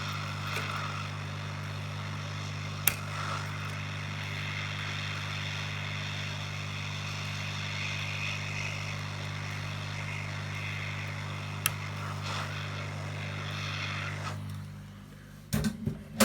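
Hot air rework station blowing with a steady hum and hiss while it heats an old amplifier chip off the circuit board, with a few sharp clicks from tools on the board. The airflow cuts off near the end, followed by a quick cluster of clicks.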